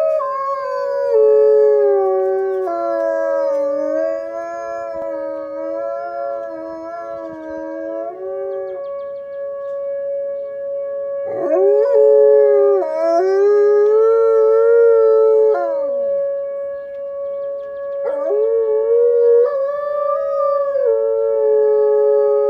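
Wolves howling in chorus: several long, overlapping howls at different pitches. One voice holds a steady note while the others rise and fall, break off and start again.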